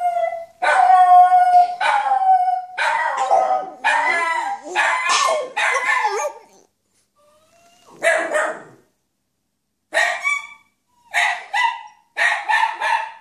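A dog howling: long, drawn-out howls that waver in pitch, then after a short pause a string of short howls, most broken into two quick parts.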